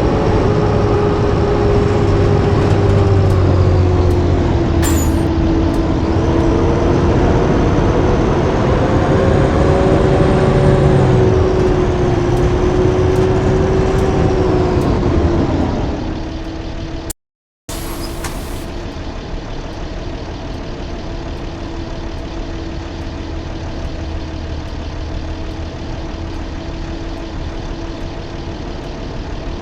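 Blue Bird D3FE bus running on the road, its engine note slowly rising and falling in pitch. About 16 seconds in it drops away, and after a brief break it runs on steadier and quieter.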